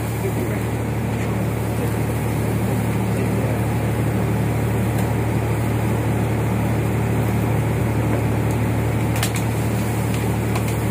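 Boat's motor running steadily: a constant low hum with a rumbling noise over it. A few faint clicks come about nine seconds in.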